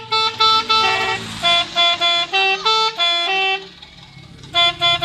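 Telolet multi-tone bus horn playing a quick tune of short, clear notes that jump between pitches, with a pause of about a second near the end before a few more notes.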